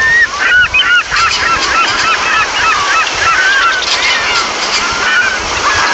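A flock of geese honking, many short calls overlapping continuously over a steady background hiss.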